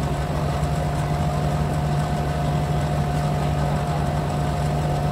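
A steady machine hum: a constant low drone with a fainter, higher steady tone above it.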